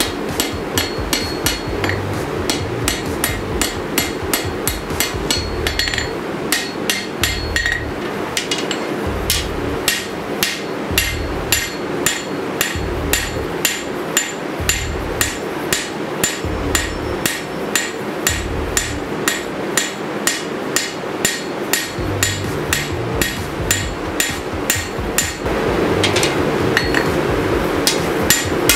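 Hand hammer striking hot 5160 steel on an anvil while forging a sword blade, a steady run of ringing blows about two to three a second, getting louder near the end, over a steady hum.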